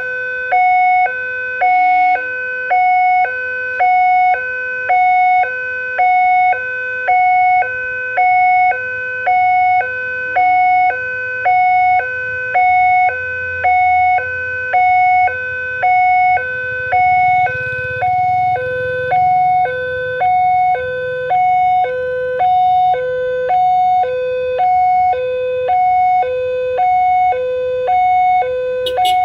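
Railway level-crossing warning siren from the crossing's horn loudspeaker: an electronic two-tone alarm stepping evenly between a lower and a higher tone at a fast tempo, about one high-low cycle a second, sounding while the barrier is down for an approaching train. A low rumble runs under it through the middle stretch.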